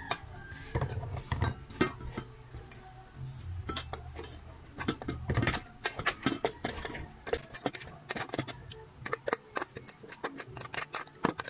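Irregular light clinks and clicks of cutlery against dishes, with faint music playing in the background during the first half.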